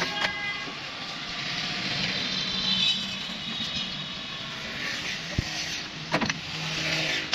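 A motor vehicle running by, its noise swelling and then fading, with a few sharp knocks near the end.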